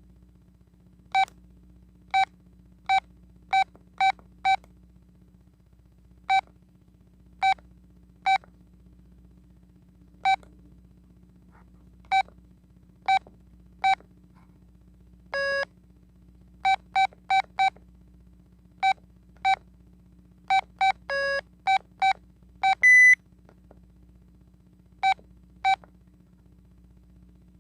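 Telit mobile phone key beeps: about two dozen short beeps of the same pitch at irregular intervals as the keypad is pressed. Two longer, lower tones sound, one about halfway through and another shortly after. A single louder, higher beep comes about 23 seconds in.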